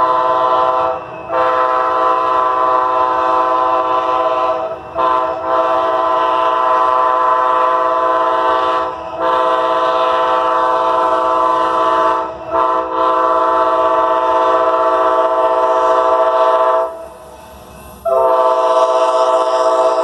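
Amtrak Sunset Limited locomotive air horn sounding its chord in a string of long blasts of a few seconds each, separated by brief breaks and a couple of short toots. It falls silent for about a second near the end, then sounds again.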